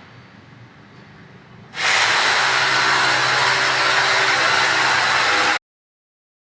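A small motor running with a loud, steady rushing noise and a low hum; it starts abruptly about two seconds in and cuts off suddenly near the end.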